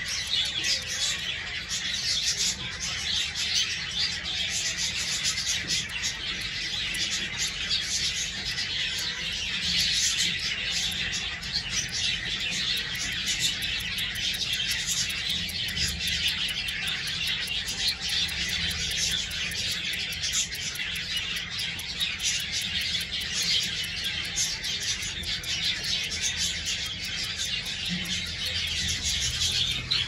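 A flock of aviary birds chirping and calling continuously, many short overlapping chirps with no pause.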